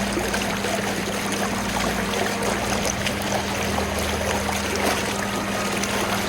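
River water rushing over rapids, a loud, even, dense rush that cuts off suddenly just after the end.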